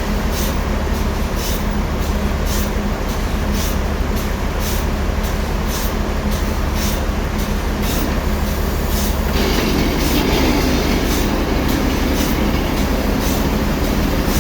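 Sawmill saw running steadily with a low hum and a faint regular tick a little under twice a second, the sound growing fuller and harsher about nine seconds in as it works through a large old log.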